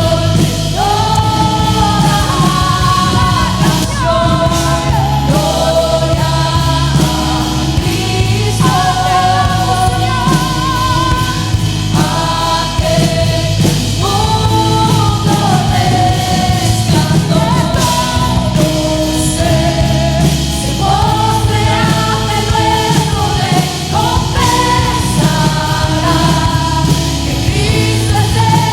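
Worship song with a group of singers holding long notes over a full band with steady bass.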